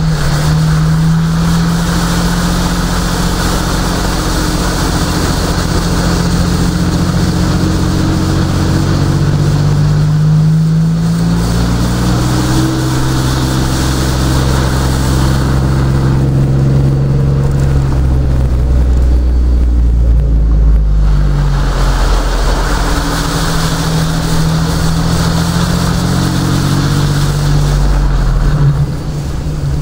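A car engine running as the vehicle drives slowly, its pitch shifting up and down with speed, over a hiss of tyres through standing water and on wet pavement that swells and fades.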